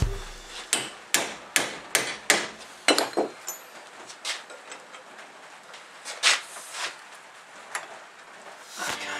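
Hammer blows on a steel flat bar clamped in a bench vise, with sharp metallic strikes about two or three a second for the first three seconds, then a few spaced knocks.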